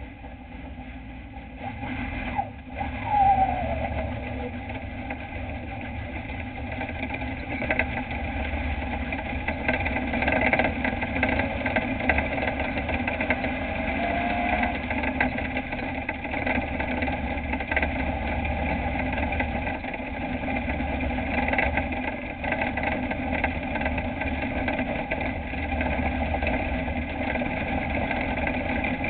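Dirt-track race truck's engine heard from inside the cab, getting louder over the first few seconds, with a brief loud peak about three seconds in, as the truck pulls away; then it runs steadily under way.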